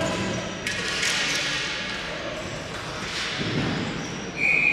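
Ball hockey play echoing in a large indoor rink: scattered clacks and knocks of sticks and the ball on the floor and boards. Near the end a short, steady, shrill tone, a referee's whistle.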